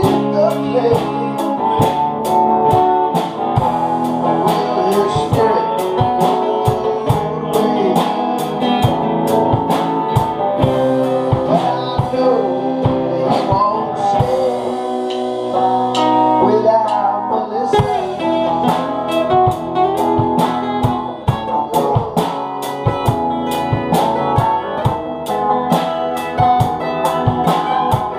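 Blues-style song with guitar, a steady drum beat and singing.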